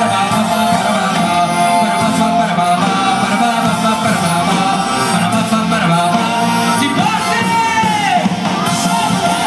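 Live band playing folk music with singing, loud and a little crowded as heard from within the audience. Near the end, a held note slides downward.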